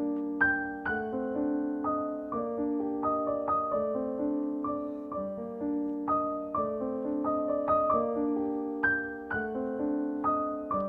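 Gentle background piano music: single notes struck about twice a second over sustained lower notes in a slow, soft melody.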